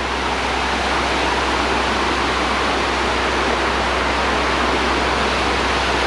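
Waterfall rushing: a steady, even wash of falling water.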